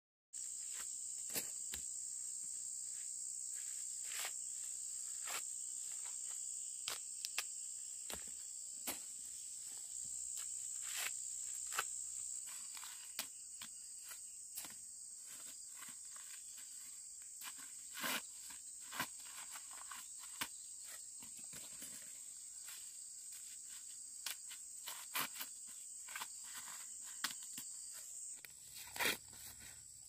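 Insects droning in one steady high-pitched band, with scattered sharp snaps and rustles throughout.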